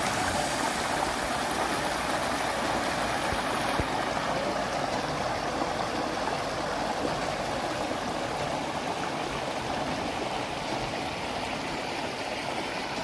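Shallow river flowing over rocks and cobbles: a steady rush of running water.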